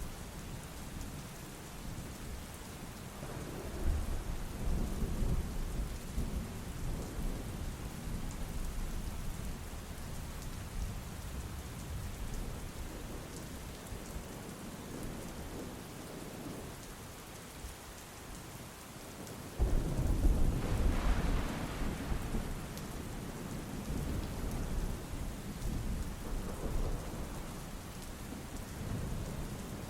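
Steady rain with thunder: a low rumble about four seconds in, then a sudden, louder clap of thunder about two-thirds of the way through that rumbles on for a few seconds.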